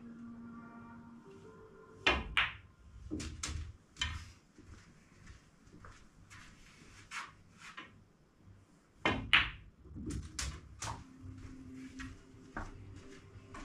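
Snooker balls being played on a 9-foot table: sharp clicks of cue tip on cue ball and ball on ball, with duller knocks, in two clusters about seven seconds apart, the second the loudest. Faint background music runs underneath.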